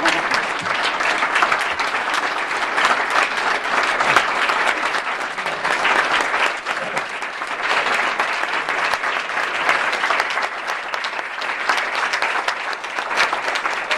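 A large audience applauding steadily, a dense patter of many hands clapping that goes on without a break.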